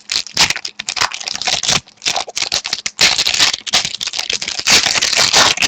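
A trading card pack's wrapper being torn open and crinkled by hand, a dense run of quick crackles and rustles, as the pack of hockey cards is unwrapped.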